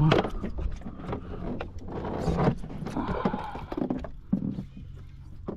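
Scattered knocks and handling clatter on a fiberglass boat deck while a fish is being fought on rod and reel.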